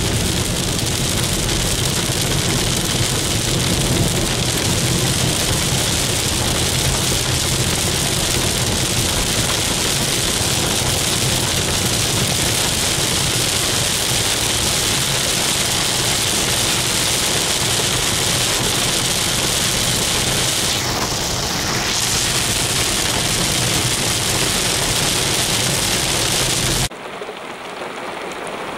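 Heavy rain pouring down: a loud, steady hiss with a low, steady hum underneath. About 27 seconds in it cuts abruptly to lighter rain.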